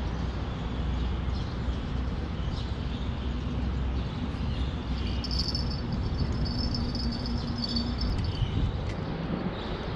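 Steady low rumble of traffic on the highway bridge overhead, with a high insect buzz joining about halfway through and stopping a few seconds later.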